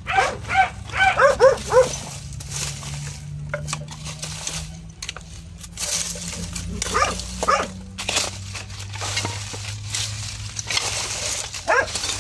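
A dog barking: a quick run of short barks in the first couple of seconds, then a few scattered barks later, over a low steady hum.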